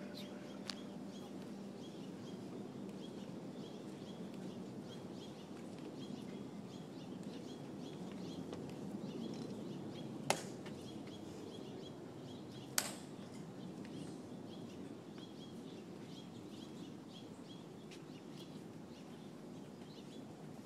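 Two sharp clicks about two and a half seconds apart, a little past the middle, from the tomb sentinel's drill as he turns and shifts his rifle. Under them a steady outdoor hush of a standing crowd, with faint, evenly repeating high chirping.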